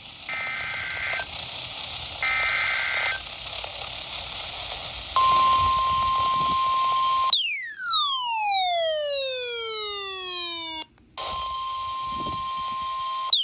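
NOAA Weather Radio emergency alert received over a hissy radio channel: two short screeching bursts of warbling SAME data tones, then the steady single-pitch 1050 Hz weather alarm tone. A few seconds in, a falling electronic sweep cuts across before the alarm tone resumes.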